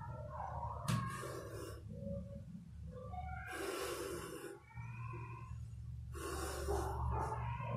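Cat and cornered rat in a standoff: repeated hisses about a second long, a few seconds apart, with squealing tones in between.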